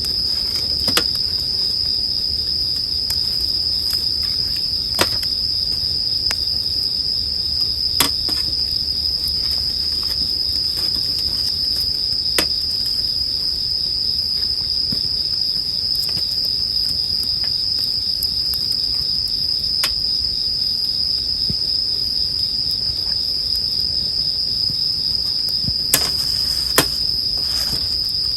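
Japanese bell crickets (suzumushi) singing in a steady, continuous high trill, with the sharp crackles and pops of a wood campfire every few seconds.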